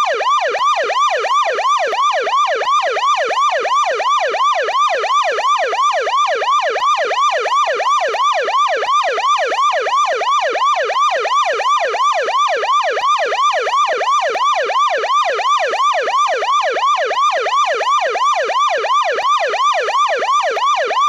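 American police car electronic siren on the yelp setting, with a thick, deep tone. It whoops rapidly up and down, about three sweeps a second, without a break.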